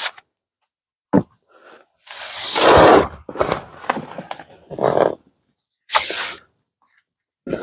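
Large cardboard packaging rustling and scraping as a solar module is lifted out and turned, with a short knock about a second in, one long loud scrape about two seconds in, then several shorter rustles.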